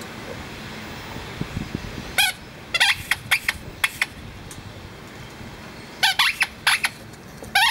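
A dog's rubber squeaky ball being bitten, squeaking in short sharp squeaks: one about two seconds in, a quick run of several around three to four seconds, another run around six seconds, and one more at the end.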